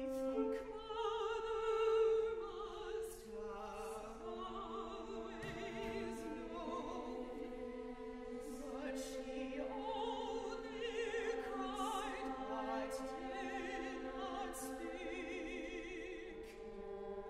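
Opera singing: several voices sing overlapping lines with wide vibrato over long held notes from the accompanying ensemble.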